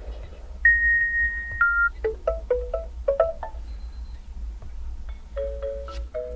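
A built-in alarm tone of a Huawei MatePad Pro 12.6 tablet, playing as a chime-like melody: a held high note that steps down, then a quick run of short mallet-like notes and a few sparser notes after it.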